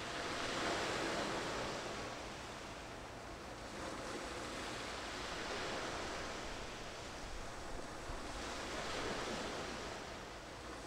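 Sea waves washing in with a little wind, a steady rush that swells and eases every few seconds.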